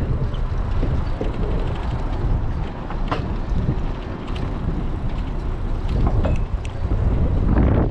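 Wind buffeting the microphone during a bicycle ride: a steady low rumble, with scattered faint clicks through it.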